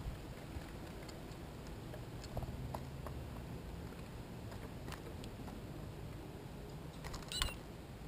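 Small birds, a white-breasted nuthatch among them, pecking at sunflower seed in a clear plastic feeder: scattered light taps and clicks. A short high bird call near the end.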